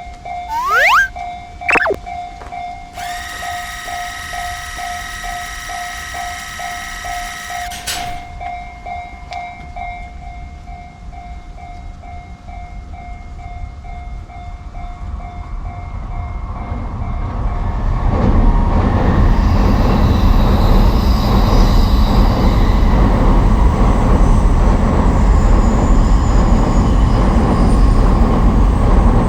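Level-crossing warning bell ringing steadily, with a train horn sounding for about five seconds starting about three seconds in. A train then approaches and runs past loudly from about 18 seconds on.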